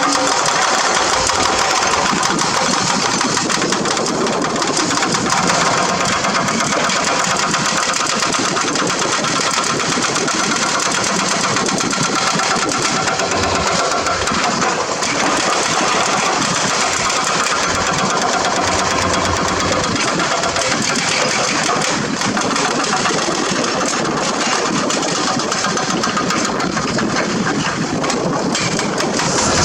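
Hydraulic excavator's diesel engine running steadily, with a dense mechanical clatter and no break.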